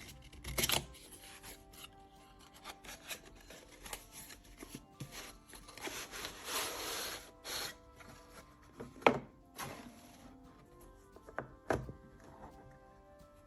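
Packaging being handled and opened by hand: rubbing and rustling, with a longer scrape about six seconds in and several sharp clicks and knocks. Soft background music plays throughout.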